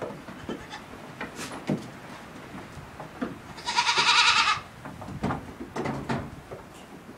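A three-week-old goat kid bleats once near the middle, a loud, high call lasting about a second. Scattered light knocks sound before and after it.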